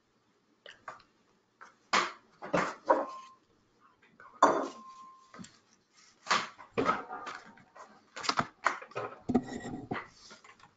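Irregular clattering and knocks of hard objects, several a second, starting about two seconds in; two of the knocks leave a brief ringing tone.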